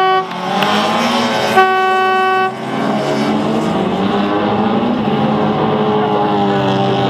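Small race car engines running together on a dirt track, their pitch rising and falling, with one horn blast held for about a second, about a second and a half in.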